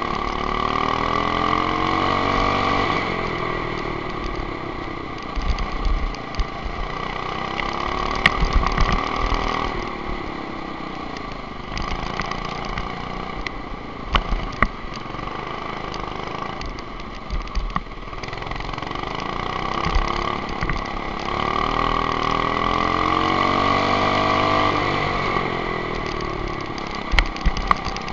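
Go-kart engine heard from onboard, revving up over several seconds and dropping back again and again as the kart accelerates out of corners and backs off into them, with rushing wind and a few sharp knocks.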